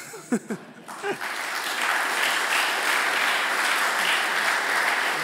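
Audience applauding, starting about a second in and settling into steady clapping, with a brief voice or laugh just before it begins.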